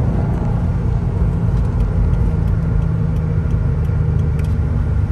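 Subaru WRX STI's turbocharged flat-four engine running at a steady, even pitch as the car cruises, heard from inside the cabin as a low drone with road noise.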